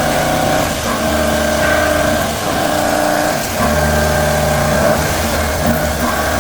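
Horizontal machining centre high-feed roughing a pocket in mold steel: a loud, steady cutting tone that breaks off briefly and comes back at a slightly different pitch every second or so.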